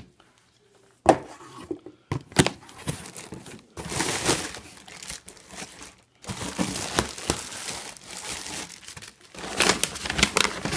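Packaging being handled and unwrapped by hand: crinkling and tearing in irregular bursts, with a sharp knock about a second in.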